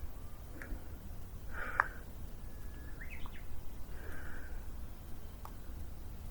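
Outdoor ambience with a steady low rumble, a few short bird calls about every two and a half seconds, and a few sharp clicks.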